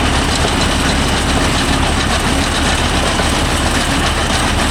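Mahindra Yuvo Tech Plus 585 tractor's diesel engine running steadily with a low drone, driving a round baler whose bale is failing to roll.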